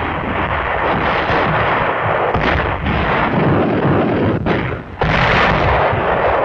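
Battle sound of artillery shell bursts and gunfire in a dense, continuous din with a few sharper cracks. It drops briefly just before five seconds in, then a fresh loud burst comes.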